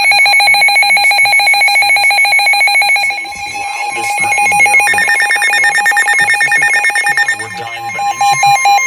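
Several NOAA weather radios sounding their tornado-warning alerts at once. Fast pulsing electronic beeps change pitch about three seconds in, and a steady warning tone joins about four seconds in.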